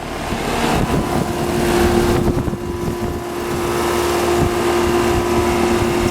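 Two 2002 Comfortmaker 2-ton central air-conditioner condensing units running normally on their first start-up of the season: a steady hum over the rush of the condenser fans, with wind rumbling on the microphone.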